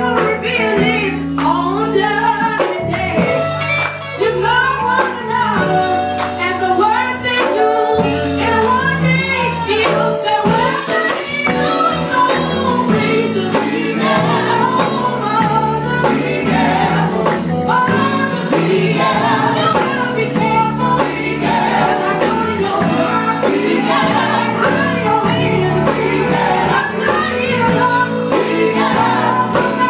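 Live gospel music: women singing into microphones over electric bass and electric guitar.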